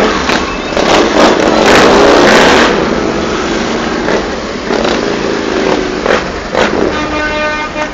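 Motorcycles riding past one after another at low speed, engines running and revving, loudest about two seconds in; a steady pitched note comes in near the end.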